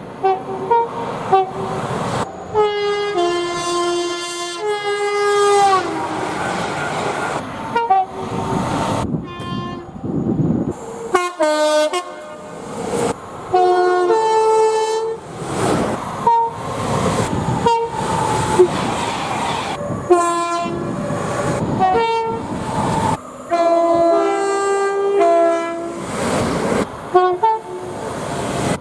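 Railway train horns sounding blast after blast, one clip cut straight into the next: chords of several tones at once, some short toots and some long blasts that bend down in pitch as they die away, over the running noise of the trains.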